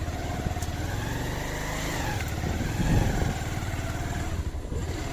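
Motorcycle engine running while riding, its pitch rising then easing back off about halfway through.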